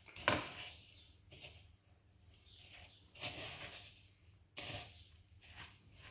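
Panko breadcrumbs rustling and crunching as a hand pats and presses them onto a fish fillet in a plastic bowl. There are about five separate soft pats, the first the loudest.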